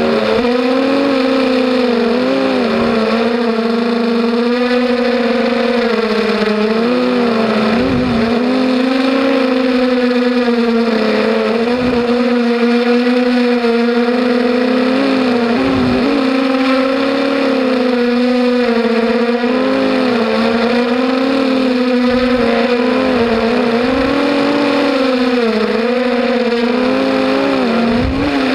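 Electric motors and propellers of an FPV racing mini quad (250 size) whining steadily, the pitch wavering up and down continuously as the throttle is worked through the course.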